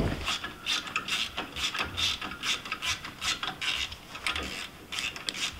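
Quick, uneven clicks and scrapes of hand tools and metal parts as the starter relay block's mount is worked loose.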